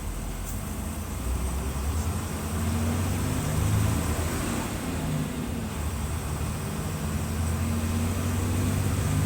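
Mercedes-Benz OF-1721 bus's diesel engine running under load, its engine speed climbing, falling back around the middle, then climbing again, growing gradually louder.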